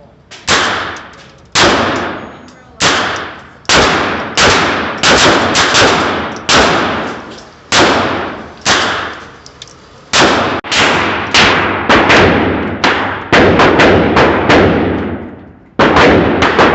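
A string of about twenty semi-automatic gunshots at a shooting range, unevenly paced: spaced about a second apart at first, then faster from about ten seconds in. Each shot has a long echoing tail.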